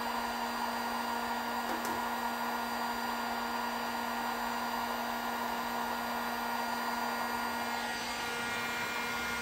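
Handheld electric heat gun running steadily with a constant blower hum and hiss, used to soften an old vinyl decal's adhesive on the truck's steel body for peeling.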